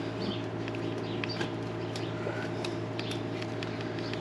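Steady low mechanical hum, with scattered short, high chirps and ticks over it.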